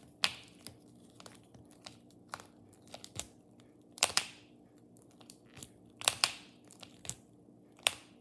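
Hard plastic toy dragon figure's wing being moved by hand: irregular sharp plastic clicks and snaps from the wing joint, about a dozen, some in quick pairs.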